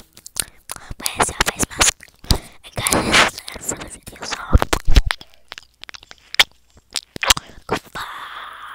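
ASMR mouth sounds close to the microphone: a quick, irregular run of wet clicks and smacks with short scraping noises between them.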